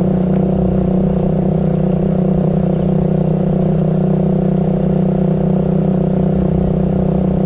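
Steady engine drone holding a constant pitch, with no change in speed.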